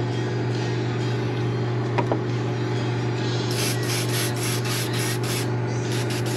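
Airbrush air compressor running with a steady low hum. There is a single click about two seconds in, and a run of short hissing bursts of air between about three and a half and five and a half seconds in.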